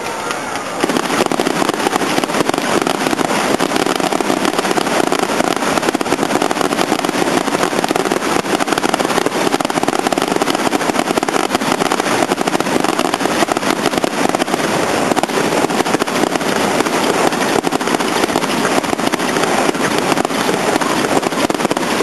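Fireworks crackling: a dense, unbroken crackle of many small pops that starts about a second in and keeps up steadily.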